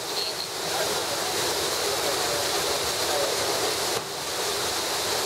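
Theme-park flood-effect water cascading down an artificial rock face and splashing onto the rocks below: a steady rush of falling water.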